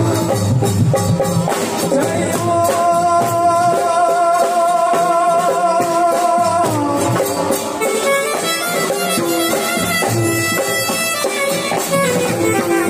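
Live Gujarati devotional raas kirtan music: a keyboard melody over a steady beat of drums and shaker-type hand percussion, with singing.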